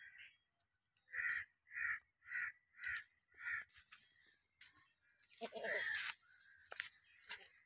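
A crow cawing five times in a quick, even series, about two caws a second, then a goat giving one short bleat a little past halfway.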